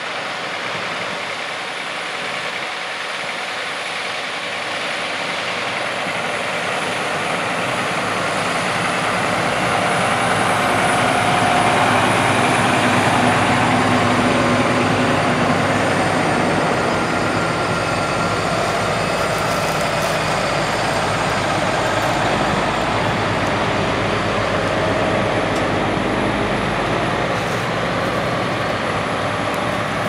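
New Holland T9.450 four-wheel-drive tractor and CR8090 combine harvester running while harvesting corn: a steady, heavy machine noise that grows louder over the first dozen seconds as the tractor with its grain cart comes closer, then holds.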